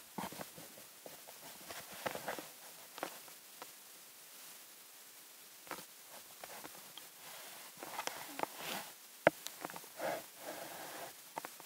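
Faint rustling, brushing and small clicks from a camera worn on a cat's collar, rubbing against fur as the cat moves about, busier near the end with one sharp click a little after nine seconds.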